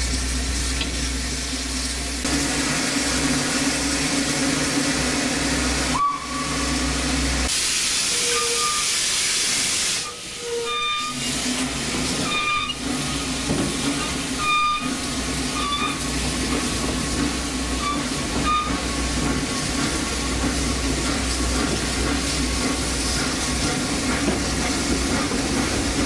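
Narrow-gauge steam locomotive standing and hissing steam steadily over a low rumble. The hiss grows sharper for a couple of seconds about eight seconds in, and brief high tones chirp on and off in the middle.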